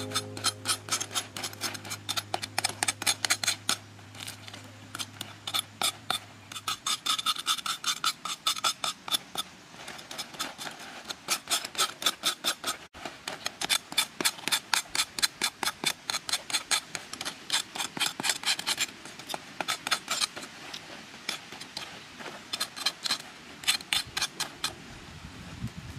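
Large knife sawing through crisp, charred roast chicken skin and bone: rapid runs of crackling crunches, several a second, with short pauses between strokes.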